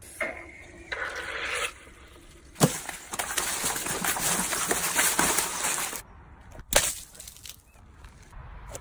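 Cartoon sound effects of water balloons bursting and splashing: sharp pops around a few seconds of noisy rushing and splashing.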